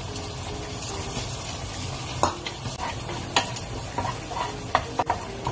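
Onion and garlic frying in butter in a pan, sizzling steadily, while a utensil stirs them and clicks sharply against the pan about five times in the second half.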